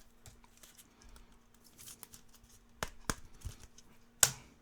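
Trading cards being flipped through by hand: faint sliding and handling rustle, with a few sharp clicks as cards knock together, the loudest near the end. A faint steady hum runs underneath.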